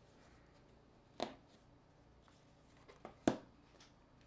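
A mobile phone being handled and set down on a table: a light hard tap about a second in, then a couple of small clicks and a sharper clack a little past three seconds.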